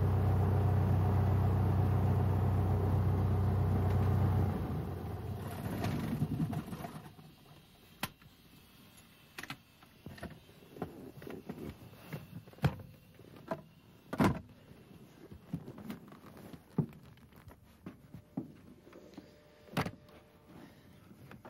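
Piper Warrior's four-cylinder piston engine running steadily at idle, then shut down about four seconds in and dying away over the next two seconds as the propeller stops. After that, scattered clicks and knocks as the pilot opens up and climbs out onto the wing.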